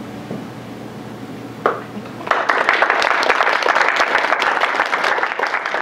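Audience breaking into applause about two seconds in, many hands clapping densely and steadily.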